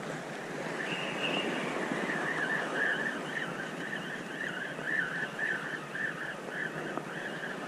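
Spinning reel being cranked to retrieve a lure, its gears giving a wavering whir that pulses about three times a second, over a steady rush of wind and sea.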